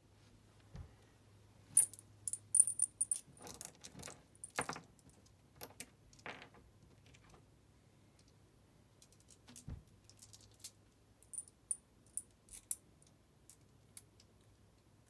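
Irregular sharp clicks and small metallic rattles of hands handling parts and wiring at a furnace blower housing during an ECM blower motor replacement, in two busy spells with a pause between.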